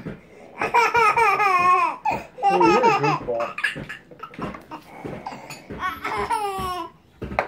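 A toddler laughing in high-pitched peals: two long, loud bursts in the first three seconds, softer giggles after, and a last short peal falling in pitch near the end.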